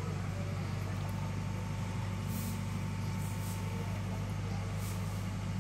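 A steady low machine hum runs throughout. Over it come a few brief splashes of water as catfish break the surface of a plastic tub.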